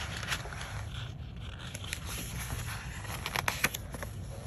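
Pages of a large glossy art book being turned by hand: paper rustling and scraping, with a cluster of sharp paper snaps a little after three seconds in as the new spread is pressed open.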